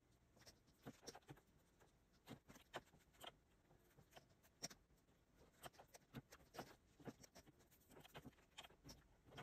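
Faint, irregular small clicks and taps of a stylus on a Wacom Cintiq pen display's screen and of mechanical keyboard keys pressed for shortcuts while drawing, a few per second at times.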